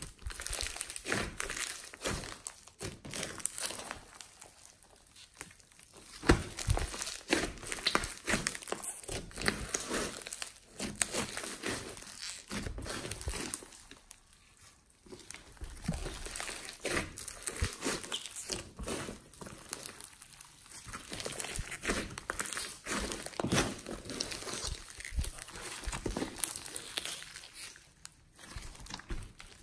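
Hands squeezing, pressing and stretching a large mass of glossy slime full of foam beads: a dense run of small sticky clicks and crackles from the beads and slime, coming in bouts with short pauses between them.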